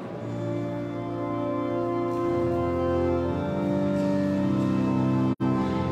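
Church organ playing slow, held chords that change about two seconds in. The sound drops out for an instant near the end.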